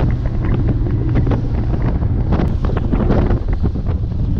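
Wind buffeting the microphone of a bass boat running at speed, over the steady low drone of its outboard motor.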